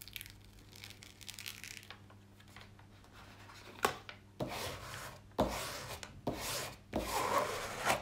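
Paper rustling as the protective release sheet on a diamond-painting canvas is lifted and smoothed. About four seconds in there is a sharp click, then a series of rubbing swishes, about one a second, as a plastic tool is pushed over the paper.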